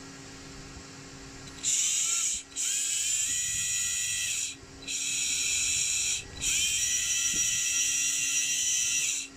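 Small electric RC car motor spun up four times in short runs, a high whine that rises in pitch at the start of each run. It has just had a replacement used bearing fitted, and the owner says it now runs without the noise it made.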